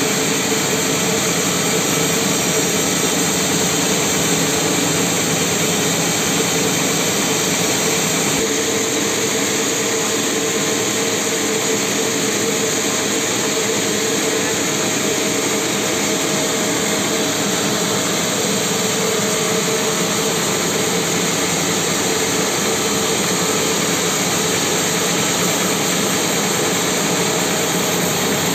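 A band sawmill runs steadily as its blade rips lengthwise through a mahogany log, a continuous loud machine noise with a steady hum.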